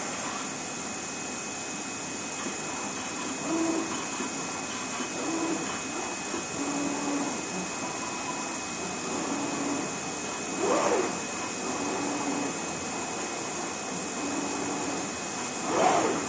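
CNC digital knife cutting machine running while it cuts reflective film: a steady blower-like hiss under short low motor hums that come every second or two as the cutting head moves. Twice, about eleven seconds in and again near the end, a quick whine rises and falls as the gantry makes a fast move.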